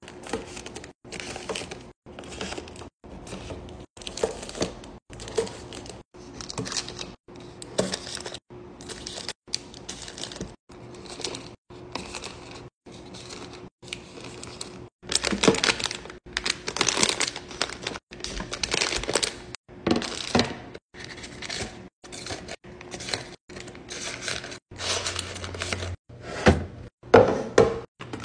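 Plastic snack wrappers and bags crinkling and crackling, with light thunks and taps as packaged snacks are set into a drawer. The sound comes in short choppy bursts with brief silent gaps more than once a second, and is louder about halfway through.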